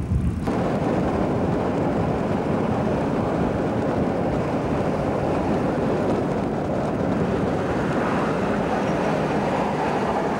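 Steady rush of wind buffeting the microphone together with road and engine noise, recorded from an open-top MG T-type sports car on the move.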